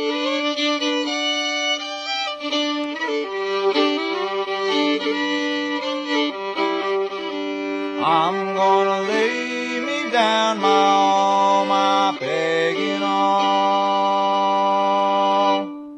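Old-time string band playing, led by fiddles, with pitch slides about halfway through and again later, then a long held final chord that stops suddenly near the end.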